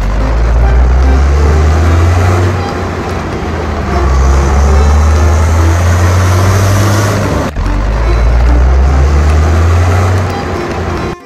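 Tanker truck engine running steadily with a deep, heavy hum under road noise. The sound drops out for an instant about seven and a half seconds in, then carries on.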